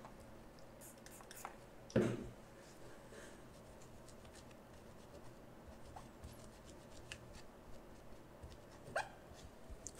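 Faint rustling and rubbing of a paper tissue wiping a laptop motherboard clean, with light clicks. There is a sharp knock about two seconds in and a smaller one near the end.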